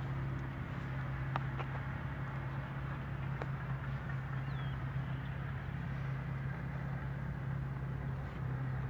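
Diesel engines of bulldozers running steadily with a constant low drone, with a few faint sharp clicks here and there.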